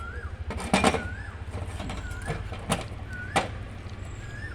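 Sharp knocks: a loud pair just under a second in, then three single knocks over the next few seconds, over a steady low hum. A bird repeats a short rising-and-falling whistled call about once a second.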